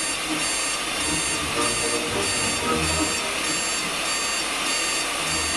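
Electronic alarm clock beeping in a rapid, evenly repeating pattern over a steady hiss.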